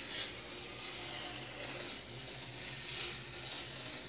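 Corrugated cardboard being cut along a corrugation line with a blade: a continuous scratchy hiss lasting about four seconds.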